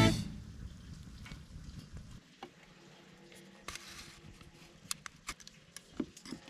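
Guitar music dies away at the start, leaving quiet with scattered faint clicks and taps.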